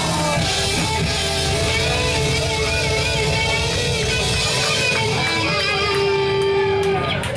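Live rock band playing at full volume: distorted electric guitars with bending lead lines over bass and drums, and a long held guitar note near the end.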